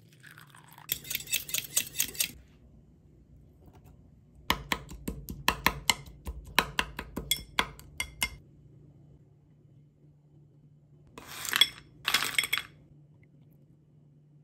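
A metal whisk clinking against a cup in quick strokes, then a longer run of about four clinks a second as the back of the whisk mashes strawberries in a glass tumbler. Near the end come two short rattling bursts.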